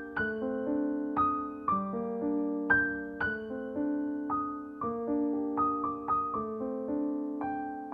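Background music: a gentle piano melody, single struck notes and chords that ring out and fade.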